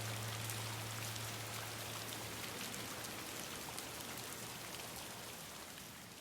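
Rain falling, an even patter of many small drops, fading out gradually. A low held drone note underneath dies away about two seconds in.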